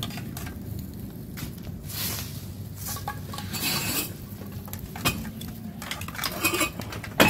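Scattered clattering and knocks of objects being handled, with one sharp, loud knock near the end.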